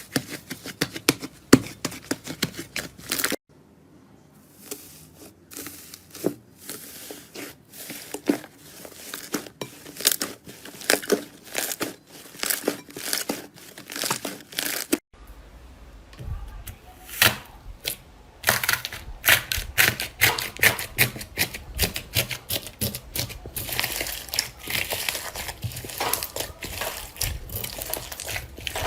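Slime being squeezed, stretched and pressed by hand, giving rapid trains of small crackling pops and clicks. The sound changes abruptly about three seconds in and again about halfway through as one clip gives way to the next.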